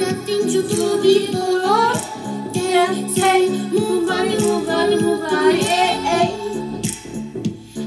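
Pop song with a steady beat and repeating keyboard chords, a female voice singing over it.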